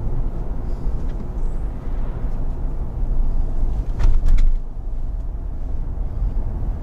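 Road noise inside the cabin of a Lexus LX 570 on the move: a steady low rumble of wind and tyre noise. A few sharp knocks about four seconds in.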